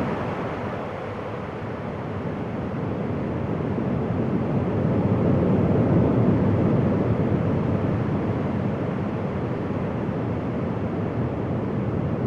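Wind blowing steadily, with no other sound. It eases a little about a second in, then builds again to its strongest around the middle.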